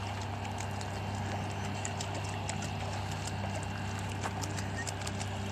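Light splashing and trickling of lake water, in many small irregular splashes, over a steady low background hum.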